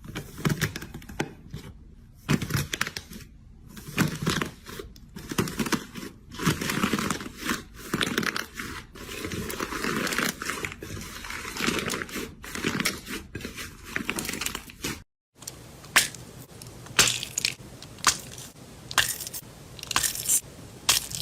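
Slime being squished and pressed by hand, giving irregular crackling, crinkling and crunching sounds. About fifteen seconds in the sound cuts out for a moment, and sharper, more separate pops follow.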